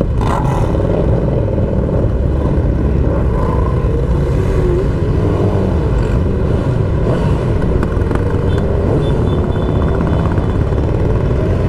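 Motorcycle engines running on the move, their pitch rising and falling, over a heavy steady rumble of wind and road noise.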